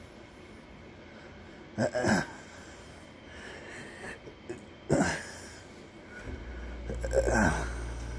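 Three short, breathy vocal sounds, each falling in pitch, about two and a half seconds apart. A steady low hum starts about six seconds in.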